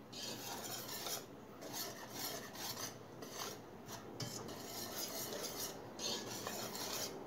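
A wire whisk stirring dry flour breading in a bowl, in repeated scraping strokes through the powder and against the bowl.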